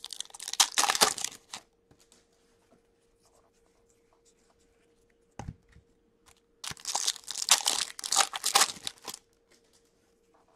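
Foil wrapper of a hockey card pack being torn open and crinkled by hand, in two bursts: one at the start and a longer one about two-thirds of the way through. A single dull thump comes in between.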